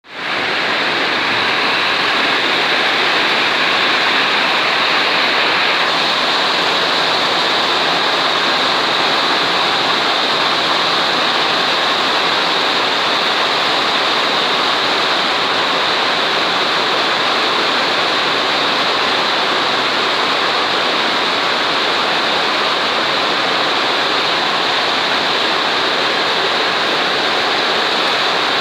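Heavy rain pouring down: a loud, steady rush of water.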